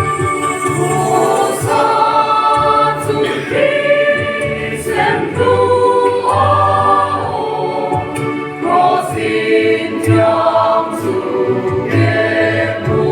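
Background music: a choir singing a slow gospel-style song over a steady accompaniment.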